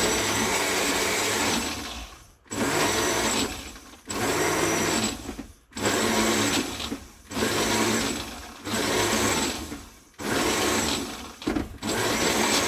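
Old countertop blender blending a thick banana and beetroot fruit smoothie, switched on and off in short pulses: about nine bursts of a second or so each, with brief pauses between.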